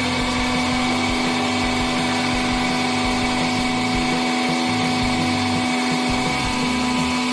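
Hydraulic press's pump and motor running with a steady hum and low rumble as the ram moves.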